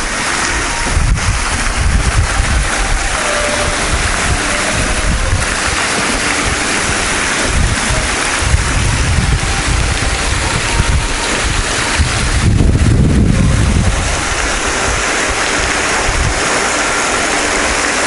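Water splashing from a fountain's spray jets into its pool, a steady hiss, with wind gusting on the microphone, strongest about twelve to fourteen seconds in.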